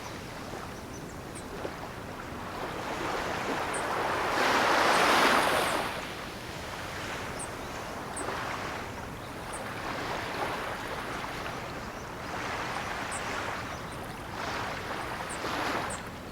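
Ocean waves breaking and washing up a shore. One large wave surges in and recedes about four to six seconds in, followed by several smaller waves.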